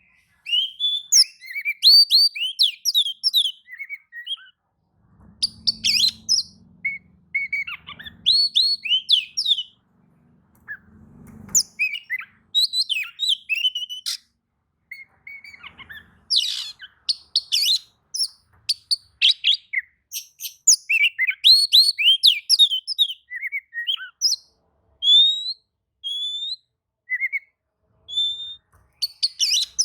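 Oriental magpie-robin (kacer) singing a loud, varied song of quick chirps and whistled notes in phrases broken by short pauses: the agitated song used to provoke other magpie-robins into answering.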